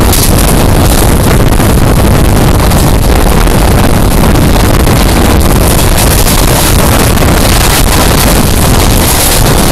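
Wind buffeting the microphone over the steady running noise of an express train, heard from aboard at speed.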